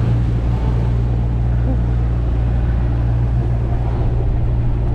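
Wind buffeting the microphone with the rush of breaking waves around a small sailing yacht in a rough sea: a steady low rumble under an even noisy hiss, with no distinct knocks or calls.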